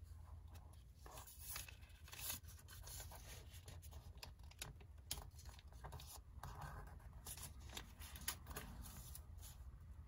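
Origami paper being folded and creased by hand: faint rustling and crinkling with many short, sharp crackles as the fold is pressed flat, over a steady low hum.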